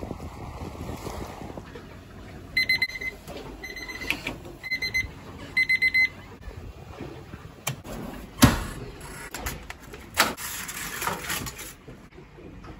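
Electronic alarm beeping: four bursts of rapid high beeps about a second apart, in the pattern of an alarm clock or digital watch. A few sharp knocks and rattles follow, the loudest about halfway through.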